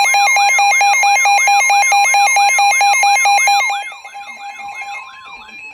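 Emergency alert tones sounding together: a steady tone, a rapidly repeating beep and a fast rising-and-falling warble. They are loud until about four seconds in, then drop to a softer warble and tone that stop near the end.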